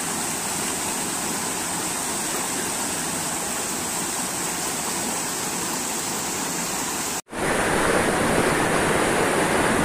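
Muddy floodwater rushing in a steady torrent over a footpath. About seven seconds in, the sound cuts off abruptly, then the rushing noise resumes louder.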